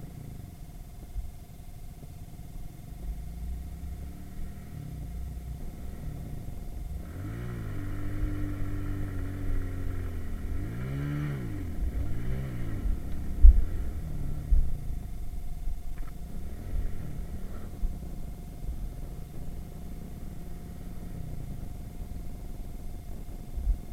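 Irbis Virago 110cc moped's small four-stroke single-cylinder engine revving up and dropping back several times as it is ridden through the gears, loudest about a third of the way in. A well-worn engine, due for a full rebuild. Wind buffets the action-camera microphone with a rough low rumble and knocks.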